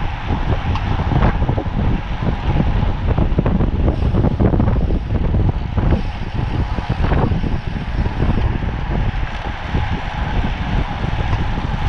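Wind buffeting the microphone of a camera riding on a racing road bicycle at speed: a loud, continuous gusty rumble with a faint steady hum over it.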